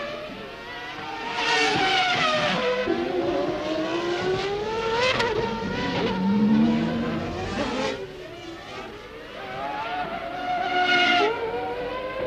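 Formula One car engines at high revs, their pitch climbing as they accelerate and dropping as they brake and change down. More than one car is heard at once, passing.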